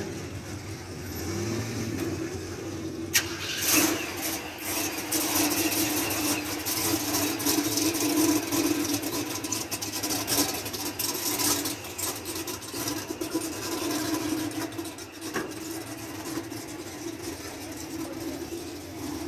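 A car engine starts about three seconds in, a sharp click followed by a burst as it catches, and then keeps running steadily.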